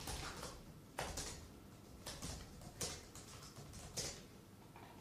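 Quiet room with a few faint, short clicks and rustles scattered through, about five of them.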